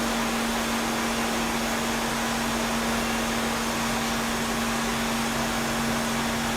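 A motor-driven machine running steadily: a constant hum over an even hiss.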